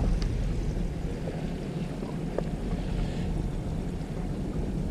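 A fishing boat's engine running with a steady low hum, under wind noise on the microphone and sea water washing, with a couple of faint small ticks.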